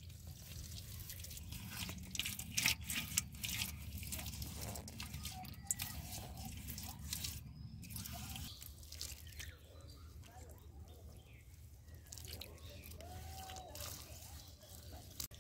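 Wet mud squelching and slapping as bare hands pat and smooth it, with a run of louder slaps about two to three seconds in. A low steady rumble underneath stops about halfway through.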